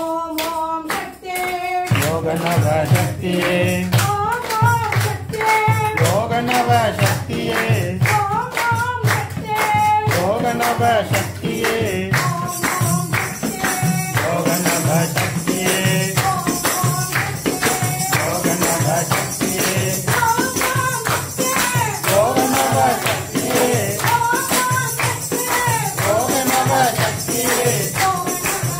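Devotional bhajan: a woman's voice singing a chanted melody, with a tambourine keeping a steady beat.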